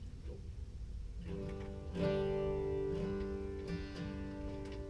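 Guitar being picked: single notes start about a second in, then a chord about two seconds in rings on, with a few more notes plucked over it.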